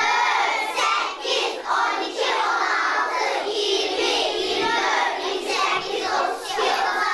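A class of young children singing together in unison, many voices at once.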